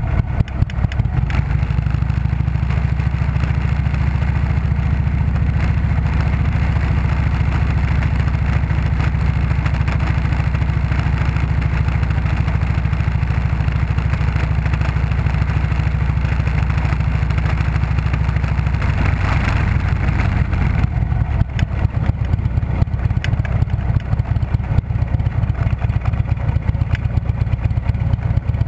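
Harley-Davidson Street Glide's V-twin engine running steadily at low speed. About twenty seconds in, the steady drone gives way to a choppier, uneven beat.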